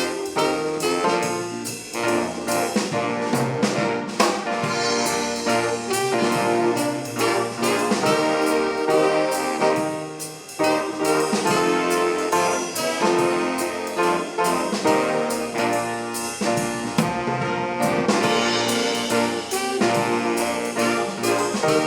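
High school swing band playing a jazz number, with trumpets, trombones and saxophones over a drum kit keeping a steady beat.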